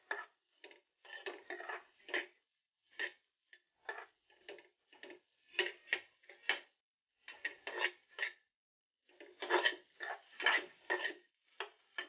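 Metal spoon scraping and tapping against a kadhai as sliced onions are stirred and sautéed in oil, in short, irregular strokes about one or two a second. The strokes are loudest near the end.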